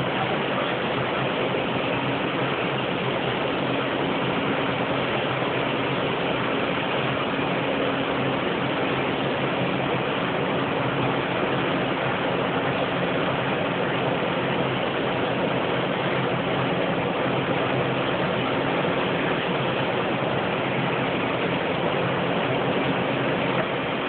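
Row of overhead-drive sheep-shearing machines and their handpieces running steadily: an even mechanical din with a low hum underneath.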